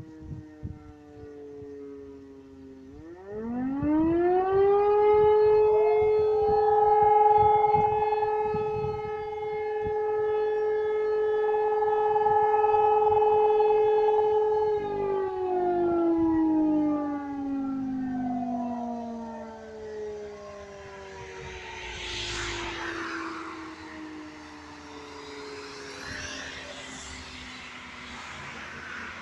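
Fire brigade motor siren sounding a test alarm. It is winding down at first, spins up about three seconds in to a steady tone held for about twelve seconds, then slowly winds down. The twelve-second blast is one blast of the German fire-alarm signal. Near the end a rushing noise swells and fades twice over the falling tone.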